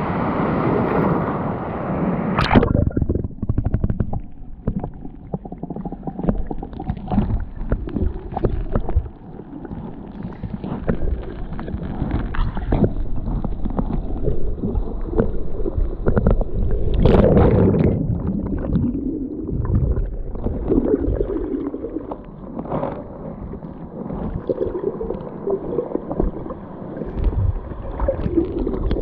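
Muffled underwater sound of the shallow surf heard through a submerged camera: low rumbling and gurgling water movement with many dull knocks. A brief wash of breaking surf at the start cuts off sharply about two and a half seconds in as the camera goes under.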